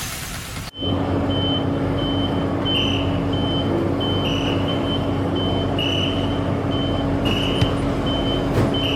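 A heavy vehicle's engine running steadily while its reversing alarm beeps about twice a second, the vehicle backing up. A short different burst of noise comes before it in the first second.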